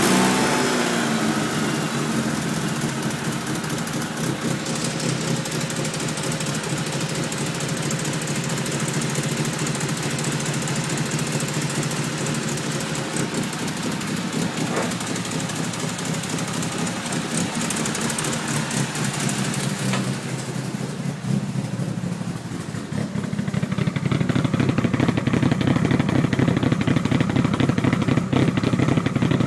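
Mitsubishi Evo I's fully forged 4G63T turbo inline-four idling rough and lumpy on 264-degree cams. About two-thirds of the way in, the sound turns louder and choppier.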